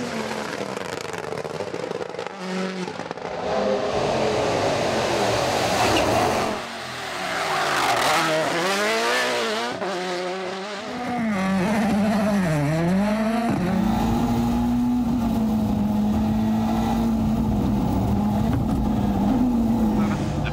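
Rally car engine driven hard, its revs climbing and dropping again and again through gear changes and lifts, then held nearly steady for the last several seconds.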